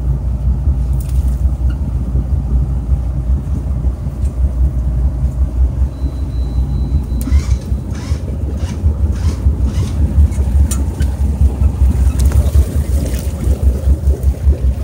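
Wind buffeting the microphone: a heavy, uneven low rumble, with a run of short knocks or scrapes about halfway through.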